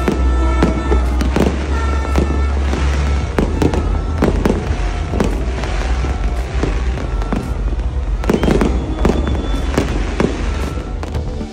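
Aerial fireworks going off overhead: a dense, continuous run of bangs and sharp cracks from bursting shells and crackling trails, with music playing underneath.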